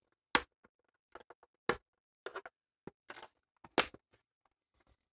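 Plastic front panel of an APC Back-UPS 1400 case being prised off its plastic clips. Three sharp clicks come just after the start, near two seconds and near four seconds, with lighter clicks and a short scrape between them.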